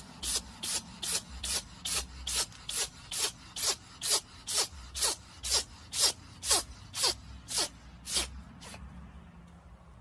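A cat sneezing over and over in a long fit, about two sharp sneezes a second, about twenty in all, stopping about a second before the end.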